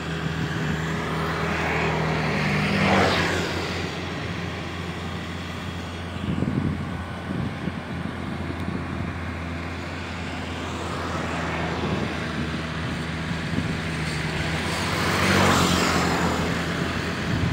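Small four-wheel farm tractor's engine running steadily under load as it tills a wet rice paddy. Twice, about three seconds in and again near the end, a rushing noise swells up over the engine and fades.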